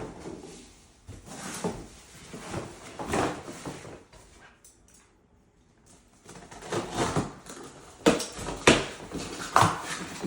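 Shoeboxes and packing paper being handled: irregular rustling swishes, a quiet pause about halfway, then a few sharp knocks of cardboard lids and boxes near the end.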